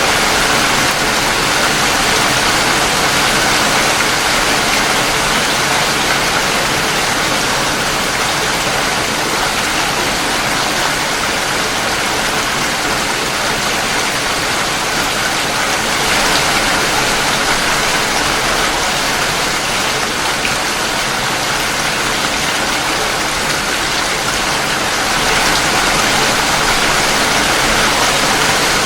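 Steady heavy rain falling, a continuous even hiss with no single drops standing out.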